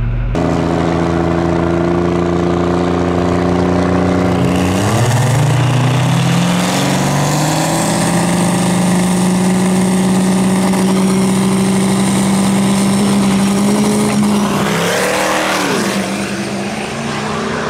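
A 1500-horsepower Duramax diesel drag truck launching and accelerating down the strip. Its engine note climbs in pitch about four to five seconds in and holds high and steady, then sweeps sharply in pitch near the end.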